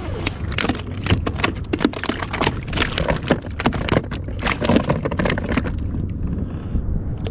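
Rapid, irregular knocks and crackles from a fish and tackle being handled on a plastic sit-on-top kayak, over a steady low rumble of wind and water. The knocking thins out near the end.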